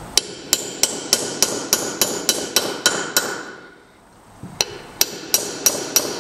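A 12 mm socket being tapped down over a valve stem, seating a new valve stem seal on the guide of an LS1 aluminium cylinder head. The taps are light, sharp and metallic, about three a second, each ringing briefly. They stop for about a second past halfway, then start again on the next seal.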